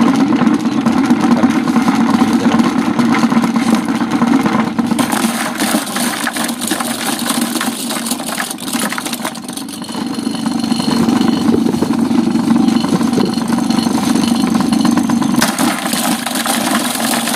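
Small engine of a multi-purpose chopper machine running steadily as young papaya is fed in and chopped, with crackling from the cutting. The level dips briefly about nine seconds in, then picks up again.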